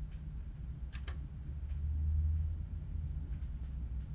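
A low, steady hum of room background noise with a few faint clicks scattered through it; the hum swells slightly about halfway through.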